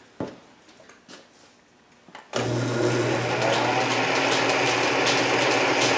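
Canedy-Otto camelback drill press switched on about two seconds in after a few light clicks, then running steadily with a low electric-motor hum at its highest belt speed, about 480 RPM at the spindle.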